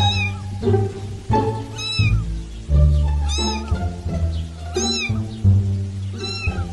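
Background music with a high meow recurring evenly about every second and a half, in time with the music.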